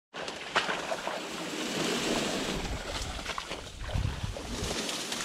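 Dense, dry cattail stalks rustling and swishing as they are pushed through on foot, with a few knocks and a low thump about four seconds in.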